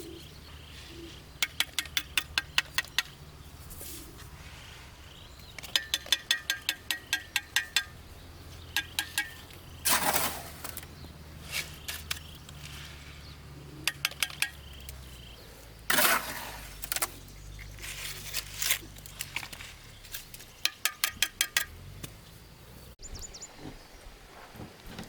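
Hard objects striking hard objects: bursts of rapid sharp clinks and knocks, several a second, some with a slight ring. There are two longer rough scraping sounds, about ten and sixteen seconds in.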